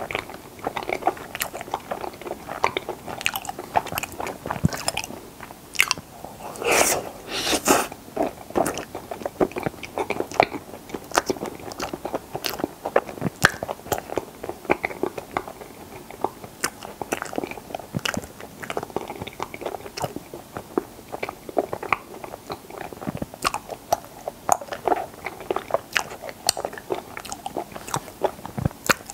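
Close-miked biting and chewing of frozen strawberry chaltteok ice, rice cake wrapped around ice cream, in dense, irregular crisp clicks. A couple of longer, louder noisy sounds come about seven seconds in.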